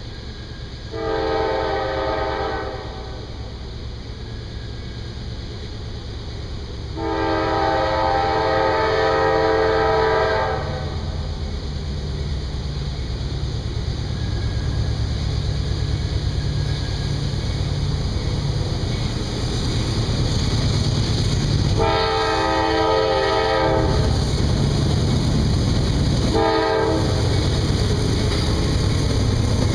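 Norfolk Southern diesel freight locomotive's air horn sounding for a road crossing: a shorter blast about a second in, a long blast around seven seconds in, then later a long, a short, and the start of another long blast near the end. Under the horn, the low rumble of the locomotive and train grows steadily louder as it approaches.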